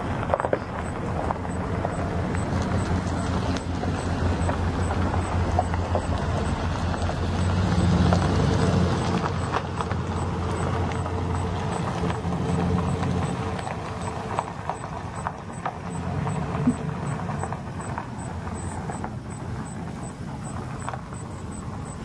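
Car engine running with a steady low hum inside the cabin, swelling briefly and then easing, with a faint high tick repeating about twice a second.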